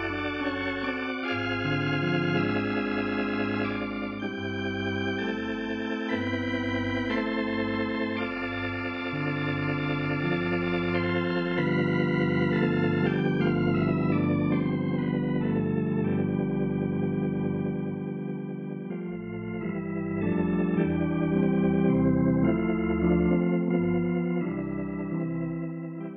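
Organ music playing held chords that change every second or two, then fading out at the very end: the closing music of a radio drama episode.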